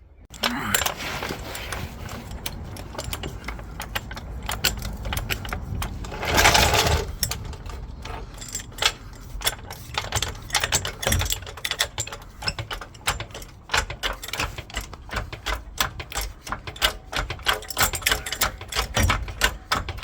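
Impact wrench hammering off the wheel nuts of a Ford Transit van's rear wheel, running in repeated bursts of rapid rattling, with one louder rush of about a second some six seconds in.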